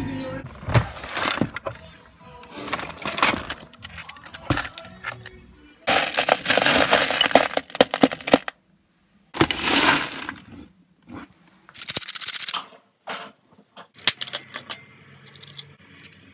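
Hands rummaging through a box of loose metal screws, wall plugs and brackets: rattling and clinking in several bursts, the longest lasting about two and a half seconds.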